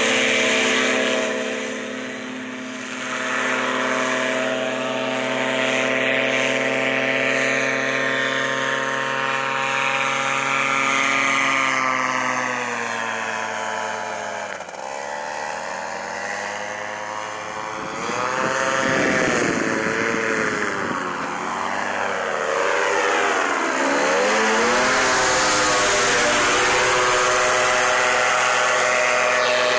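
Powered paraglider's engine and propeller running steadily at flying power, a droning buzz. In the middle stretch its pitch sweeps down and back up several times as the craft flies past the camera.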